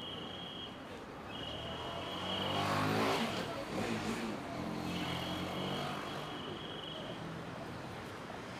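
A motor vehicle driving past on the street. Its engine hum swells to its loudest about three seconds in, drops in pitch as it goes by, and leaves a steadier hum behind.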